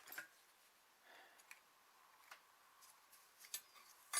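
A few faint, scattered metal clicks from snap ring pliers working a C-clip into its groove, with a sharper click near the end.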